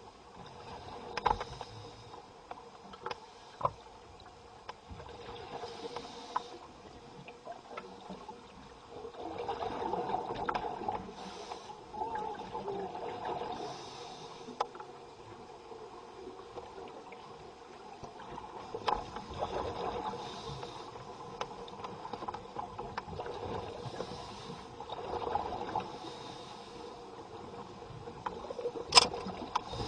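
Scuba divers breathing underwater: swells of exhaled bubbles every few seconds over a low underwater hiss, with scattered clicks and knocks and one sharp click near the end.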